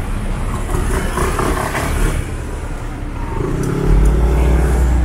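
City street traffic noise, then a motor vehicle's engine running close by from about three and a half seconds in: a steady low hum that gets louder and holds.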